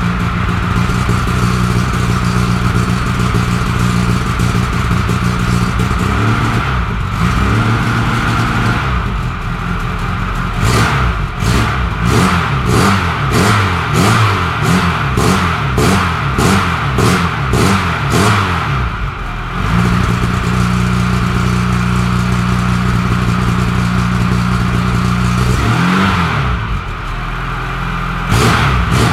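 Wartburg 1.3's four-cylinder four-stroke engine running cold, heard at the tailpipe. It starts at a steady idle and steps up briefly about six seconds in. The engine speed then swings up and down about once a second for some nine seconds, the surging running of this engine when cold, before settling back to a steady idle and rising again near the end.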